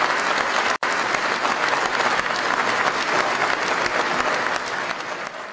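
Audience applauding, a dense steady clapping that briefly drops out for an instant about a second in, then fades away near the end.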